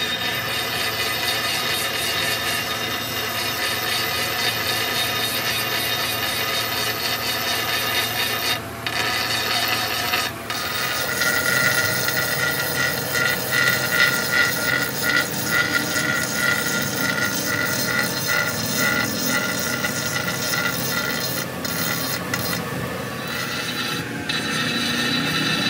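Metalworking machinery running steadily on a cast-iron engine block, a continuous grinding, rasping noise. From about ten seconds in, a high squeal pulses about two or three times a second.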